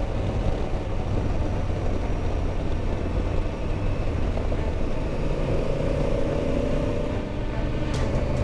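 Motorcycle engine running at highway speed, mixed with a steady rush of wind and road noise, easing off slightly as the bike slows. A few sharp clicks near the end.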